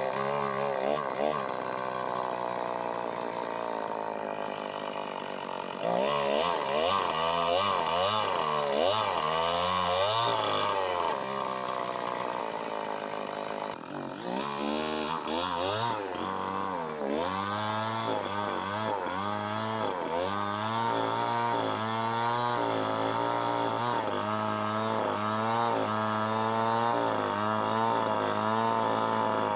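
Two-stroke chainsaw running throughout, its engine speed rising and falling over and over as the throttle is worked.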